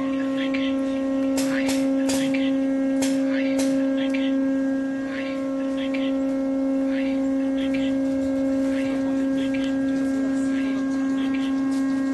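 A steady, unchanging low hum or drone tone with a fainter overtone above it, with scattered short clicks and chirps over it.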